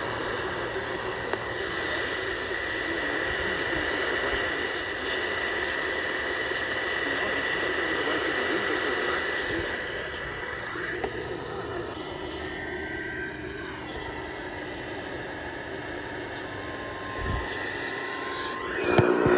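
Radio receiver on weak reception: steady hiss and static with a thin constant high tone running through it. Just before the end a loud, buzzy burst of stacked tones cuts in.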